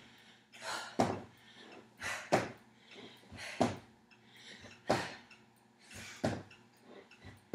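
Sneakered feet landing on a gym floor during repeated squat jumps: about six sharp thuds, one every second and a bit.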